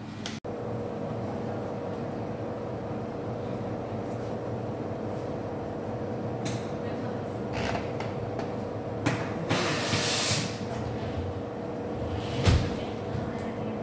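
Café counter work sounds over a steady machine hum: a few light clatters of handling, a short loud hiss about nine to ten seconds in, and a sharp thump near the end as an under-counter door is shut.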